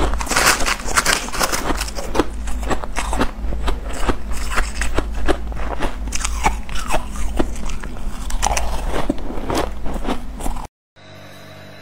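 Crunching bites of freezer frost (loose white ice) between the teeth, mixed with a metal spoon scraping and scooping the frost in a plastic tub: a dense run of crackly crunches. Near the end it cuts off suddenly, and a much quieter steady hum follows.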